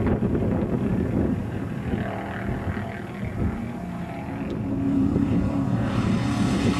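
Off-road race truck engine running, growing louder about five seconds in as it comes closer.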